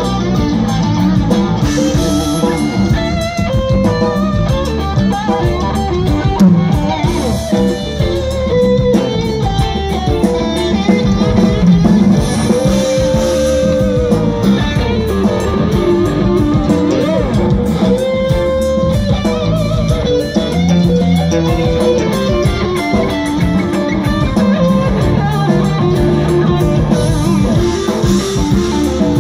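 Live rock band playing through a PA, with electric guitar to the fore over bass and drums; several guitar notes are held and bent.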